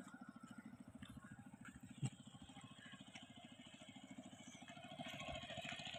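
Faint, steady putter of a small boat engine driving a wooden boat, a fast even pulse throughout, with a single click about two seconds in.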